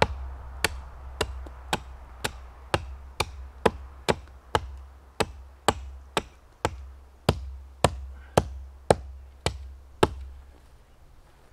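A Hultafors Hunters Axe chopping into the trunk of a small tree: about twenty sharp, evenly paced strikes, roughly two a second, which stop about ten seconds in.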